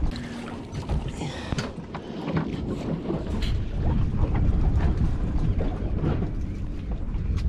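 Wind on the microphone and water noise aboard a small fishing boat, with scattered knocks and clicks. It gets louder about halfway through.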